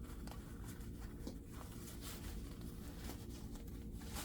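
Soft rustling and scratching of a nylon backpack being handled as a small umbrella is stowed in its side pocket.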